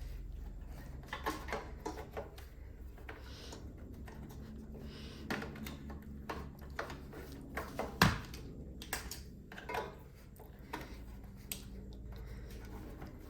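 Hand tools clicking and tapping on metal at irregular moments as bolts are worked off a snowblower's carburetor cover, with one sharp knock about eight seconds in.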